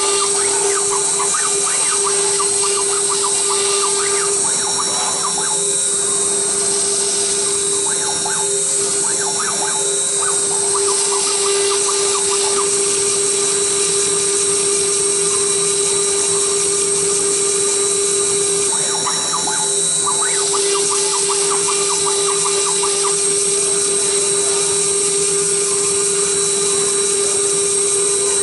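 Redsail CNC router running steadily as it engraves a circuit board: a constant hum with a high whine, and patches of rapid ticking that come and go several times.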